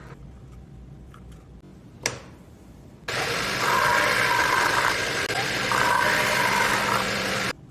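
Milling machine spindle running, with an end mill cutting into a roll of toilet paper: a loud steady whir with a higher whine over it. It starts abruptly about three seconds in and cuts off sharply near the end. Before it there is a low hum with one sharp click about two seconds in.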